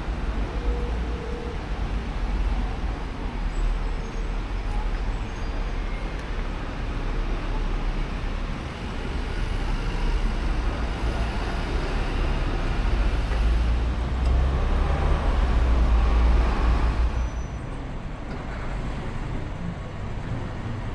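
City street traffic with a steady deep rumble of engines and tyres. One vehicle swells up loud as it passes close, about two-thirds of the way through, then falls away.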